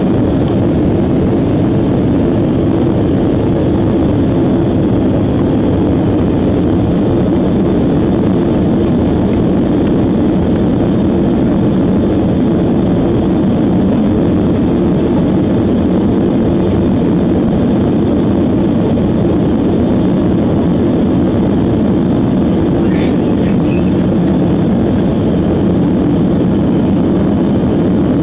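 Steady cabin noise inside an Airbus A330-300 airliner in flight: an even, low rumble of engine and airflow noise that does not change.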